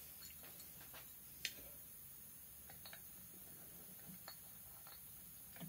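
Near silence: room tone with a few faint light clicks from a piston and wrist pin being handled, the clearest about one and a half seconds in.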